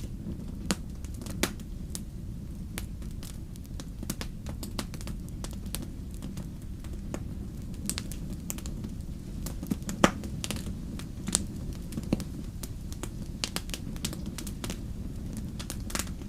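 Fire crackling in a fireplace: irregular sharp pops and snaps over a steady low rumble of the flames, the sharpest pop about ten seconds in.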